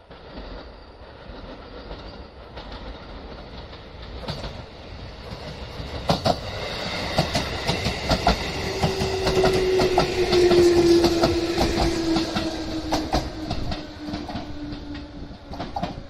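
JR West 213 series electric train approaching and passing close by, its wheels clicking over the rail joints. It grows louder to a peak about ten seconds in, with a steady tone that falls slightly in pitch as it goes by.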